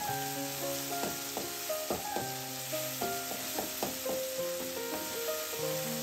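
A slotted steel spatula scraping and tapping against an aluminium kadai, a few strokes a second, while chopped onions and tomatoes sizzle in hot oil. Background music with held notes plays underneath.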